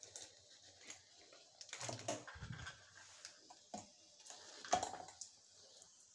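Scattered light clicks and clinks of kitchen utensils being handled: a spoon in a glass ghee jar and steel vessels, with a soft thump about two and a half seconds in and a sharper clink near the end.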